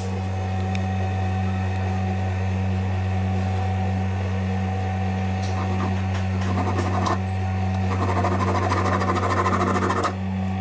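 Turbocharger cartridge (shaft and compressor wheel) spinning on a Schenck high-speed balancing machine during a balancing run: a steady hum. A rougher whirr is added about 8 s in and cuts off suddenly about two seconds later.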